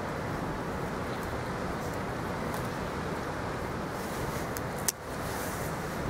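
Steady wind buffeting the microphone, with one sharp snip of hand pruning shears about five seconds in.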